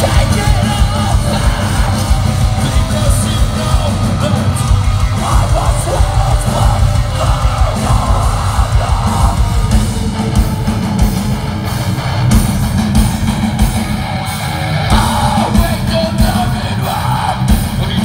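Metalcore band playing live at full volume through a concert PA: distorted guitars, bass and fast drums with vocals over them, heard from the audience.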